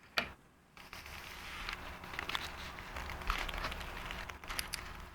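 Small clicks and rattles of hand tools and screws being worked on an electric skateboard's wheel and drive-gear assembly, with a sharp click near the start, over a low steady hum.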